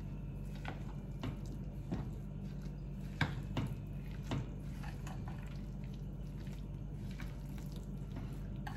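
A hand squishing and stirring a wet oats-and-semolina batter with chopped vegetables in a glass bowl: faint, irregular wet squelches and soft taps, a few stronger ones around the middle. A steady low hum runs underneath.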